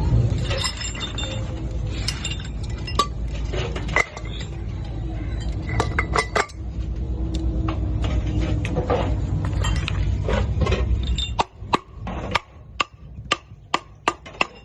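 Metal tools clinking and tapping against metal parts over a steady low running rumble. The rumble stops about eleven seconds in, leaving a string of sharp, separate metallic clinks that ring briefly.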